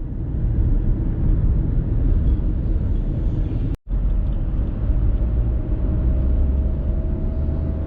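Steady low rumble of a car driving on the road, broken by a sudden brief dropout about four seconds in.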